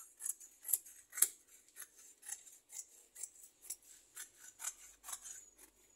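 Tailor's scissors cutting through skirt fabric in a steady run of short snips, about two a second.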